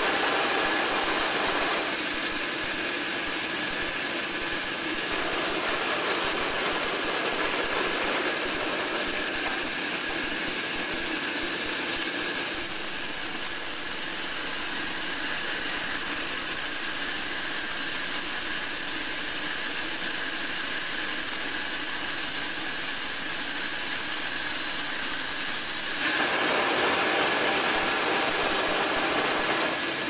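Horizontal band sawmill running, its blade cutting lengthwise through a coconut palm log on the moving carriage. A steady, high-pitched machine noise whose tone shifts about two seconds in and again a few seconds before the end.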